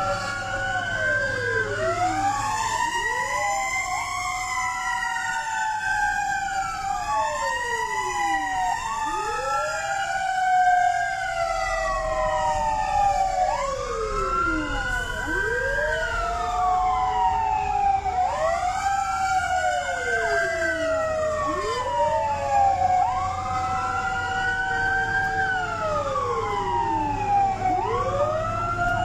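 Several fire truck sirens wailing at once, each rising and falling in pitch every few seconds and out of step with the others, over a steady low rumble of engines.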